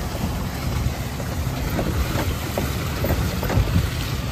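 Vehicle engine running with a steady low rumble, with wind noise on the microphone.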